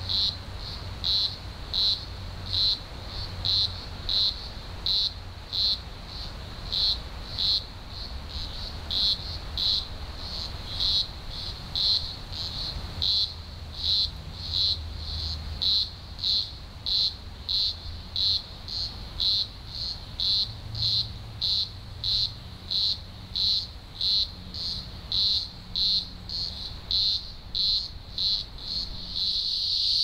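Chorus of green grocer cicadas (Cyclochila australasiae) singing: a loud, high buzz pulsing about three times every two seconds, merging into one continuous drone near the end.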